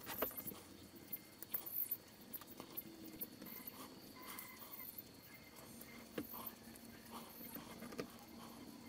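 Ballpoint pen drawing dotted lines along a steel ruler on paper: faint, irregular light taps and short scratches.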